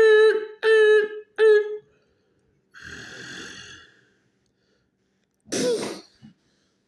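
A person's voice making three short, level-pitched vocal sounds in quick succession, then a breathy hiss and a brief sound that drops in pitch.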